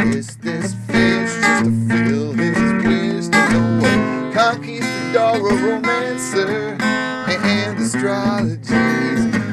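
A man singing an original song to strummed acoustic guitar.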